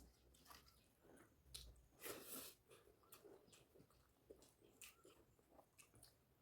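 A person chewing a mouthful of food, with irregular short mouth clicks and smacks and a louder, noisier stretch about two seconds in.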